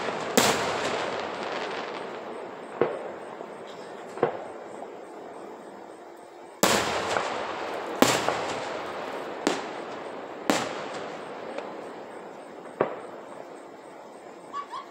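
Aerial firework shells bursting: about ten sharp booms, one to two seconds apart with a short lull in the middle, the bigger ones each trailing a long rolling echo that dies away.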